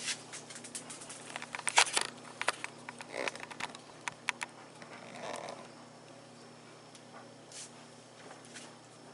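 A person biting into and chewing a chewy oatmeal bar, with scattered small clicks and crackles, mostly in the first half. A short, soft "mm"-like murmur comes about five seconds in.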